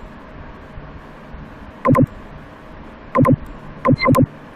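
Computer mouse clicking: a few sharp clicks, mostly in quick press-and-release pairs, about two, three and four seconds in, over a steady low hiss.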